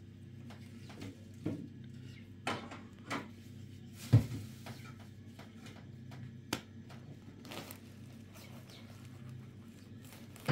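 Hands shaping bread dough into balls and setting them down on a floured cloth: scattered soft thuds and taps, the sharpest about four seconds in, over a low steady hum.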